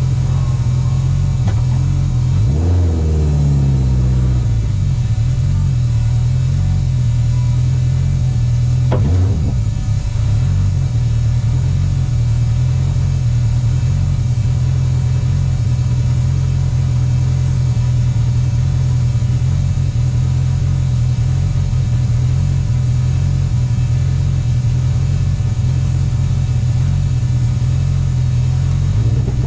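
Race car's engine heard from on board, running loud and steady, with quick rises and falls in pitch about three seconds in and again around nine seconds in.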